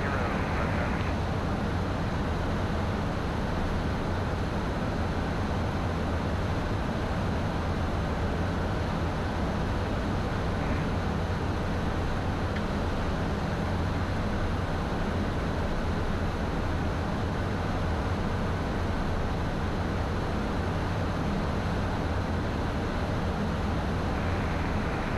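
Steady cockpit noise of a Beechcraft Premier I business jet in cruise: a constant rush of airflow over a low, even hum from its twin turbofan engines.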